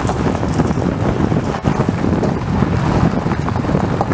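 Chevrolet Trailblazer driving along a dirt off-road trail: a steady rumble of tyres and drivetrain, with wind buffeting the microphone and a few faint small knocks.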